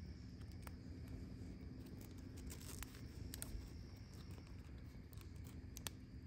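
Quiet woodland ambience: a faint, steady high drone of insects, with a few scattered sharp clicks and light scrapes from close by.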